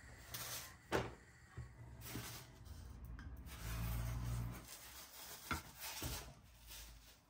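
Kitchen handling sounds: soft rubbing and a few light knocks, the sharpest about a second in, as flatbreads are laid on a stacked ceramic plate and brushed with a silicone pastry brush.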